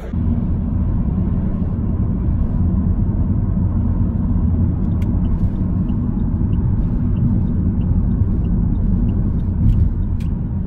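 Road vehicle in motion heard from inside the cabin: a steady, loud low rumble of engine and tyre noise, with a few faint rattling ticks.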